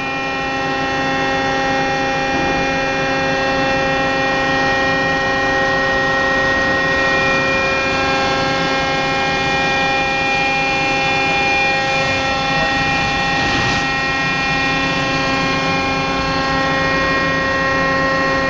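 Large robot arm rig's drive machinery running during a rotation move, a steady hum of several tones that holds the same pitch throughout.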